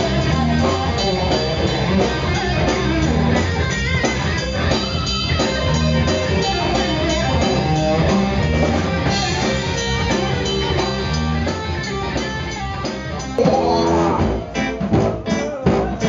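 Live blues-rock trio playing: electric guitar over a low bass part and drums. About thirteen seconds in the sound changes abruptly to louder, choppier playing with sharp separate drum hits.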